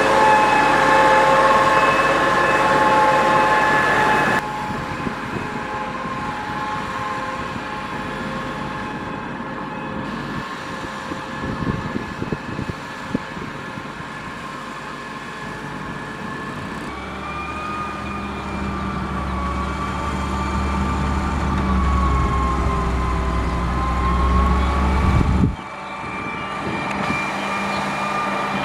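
Caterpillar 140H motor grader working, its diesel engine running under a steady high whine. The sound changes abruptly a few times; a deeper engine note and a wavering whine come in about two-thirds of the way through.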